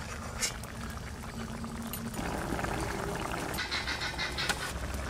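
Lote (Bombay duck) fish simmering in a metal kadai: the water released from the fish bubbles and crackles, with a few faint clicks. The bubbling grows busier and louder about two seconds in.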